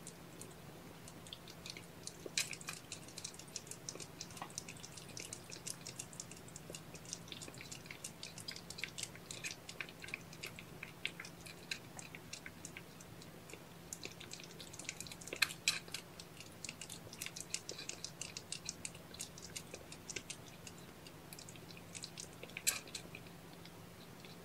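Cats licking and grooming: runs of quick, wet clicks and smacks from their tongues, with a short pause about halfway through.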